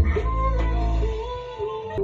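Music with a heavy, deep bass and a sustained, gliding melody line. A drum hit opens it, and the bass drops out briefly after about a second before coming back.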